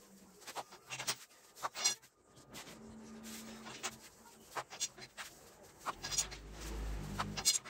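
Dough wrapped around a long thin oklava rolling pin, rolled back and forth under the palms on a floured table to thin it for mantı: scattered light clicks and knocks of the pin and hands, with a low rumble from about six seconds in as the sheet is rolled and unrolled.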